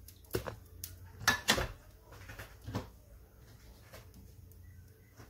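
A few short knocks and clatters of kitchen utensils and dishes being handled, the two loudest close together about a second and a half in, over a low steady hum.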